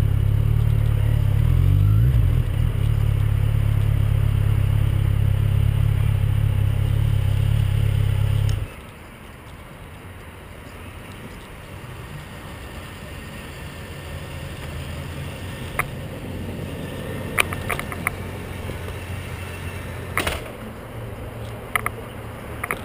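Motorcycle engine running low and steady as the bike rolls to a stop, then switched off suddenly a bit over a third of the way in. After that there is a quieter outdoor background with a few short sharp clicks and knocks near the end.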